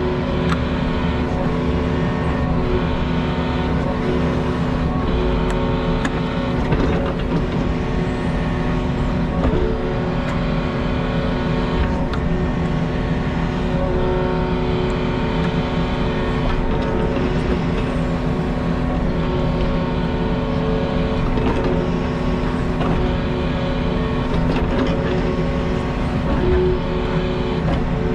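Diesel engine of a piece of earthmoving equipment running steadily under load, with a few light knocks.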